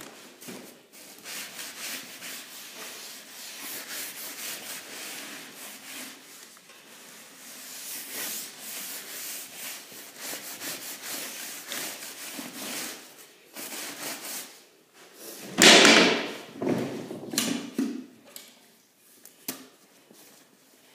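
Broom bristles scrubbing a wet hardwood floor coated in chemical floor stripper, a long run of scratchy back-and-forth strokes that loosens the old paint. About fifteen seconds in comes a louder, rougher bout of rubbing and knocking, which then dies away.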